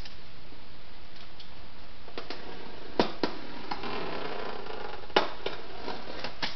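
Knife slitting the packing tape on a cardboard shipping box: a few sharp clicks and knocks on the cardboard, the loudest about five seconds in, with a short scraping rasp of the blade through the tape between them.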